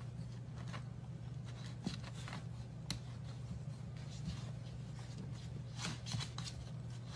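Faint scattered taps and scuffs of a golden retriever puppy's paws and claws on a hardwood floor as it paws at a spiky rubber ball, over a steady low hum. A few sharper clicks come about two and three seconds in, and a quick run of them near the end.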